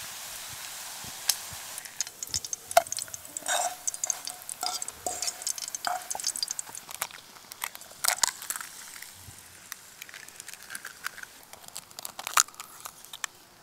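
Bacon frying in a pan of hot fat: a steady sizzle that gives way after a couple of seconds to scattered pops and crackles. Between them a fork clinks and scrapes on the pan as the strips are turned and lifted out.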